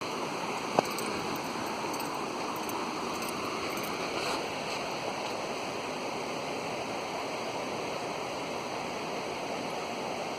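Waterfall rushing with a steady, even roar of falling water. A single sharp click about a second in.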